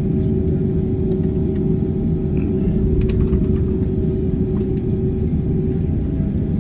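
Cabin noise inside a Boeing 767 airliner taxiing after landing: a steady low rumble from the engines and airframe, with a steady hum over it.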